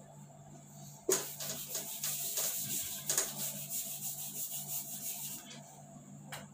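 Handheld whiteboard eraser rubbed in quick back-and-forth strokes across a whiteboard, wiping off marker writing; it starts about a second in and fades out near the end, followed by a light click.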